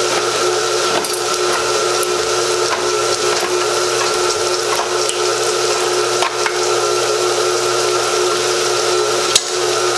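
Automatic electric can opener running around the rim of a tomato can with a steady motor hum. There is a single sharp click near the end.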